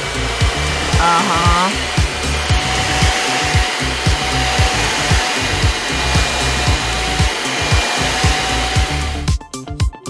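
Vacuum cleaner running steadily with a high whine, sucking up powder; it cuts off about nine seconds in. Background music with a steady beat runs underneath.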